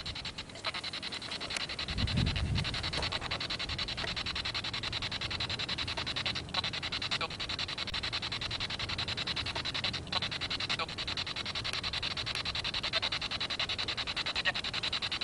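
Steady hiss and fine crackle of a boosted audio recording, played back as a claimed EVP in which the uploader hears a woman say "it's Tom" and a man say "kill him". A low thump about two seconds in.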